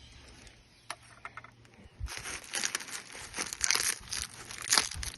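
Packaging being pulled off and crumpled by hand while unwrapping a boxed car part: a single click about a second in, then dense crinkling and rustling from about two seconds in.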